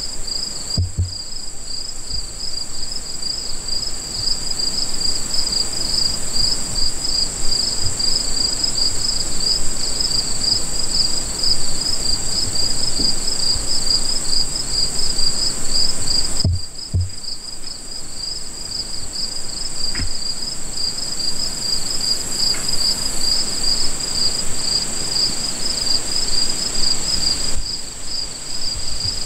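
Evening chorus of crickets and other insects: a fast, pulsing high trill with a steady, higher-pitched tone above it, broken by a few soft low knocks.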